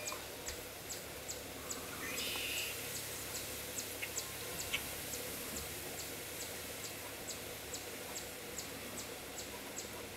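Outdoor background hiss with a regular high ticking, about two ticks a second, and a brief chirp about two seconds in.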